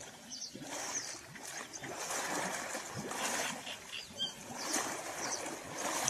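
Water splashing and sloshing irregularly, with a few small knocks.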